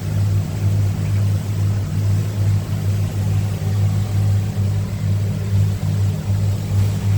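Motorboat engine running underway: a steady low drone whose level swells and fades, with a haze of wind and water noise over it.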